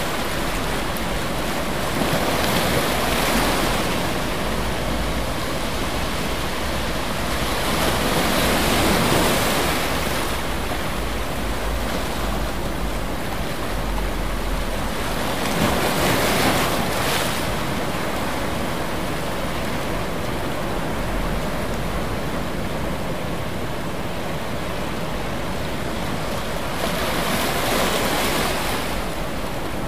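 Ocean surf: waves breaking and washing in a continuous hiss that swells louder every several seconds.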